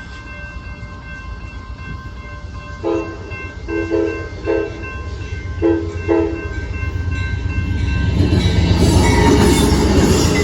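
Amtrak Texas Eagle passenger train approaching. Its locomotive horn sounds a series of short blasts, then the rumble and rush of the train grow loud as it comes past close by.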